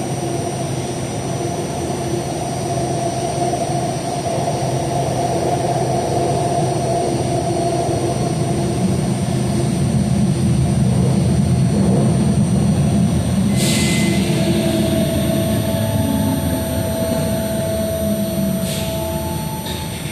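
Buffalo Metro Rail light-rail car running along the track, heard from inside the car: a steady rumble with a held motor whine, growing louder toward the middle and easing off again, with two sharp clicks about 14 and 19 seconds in.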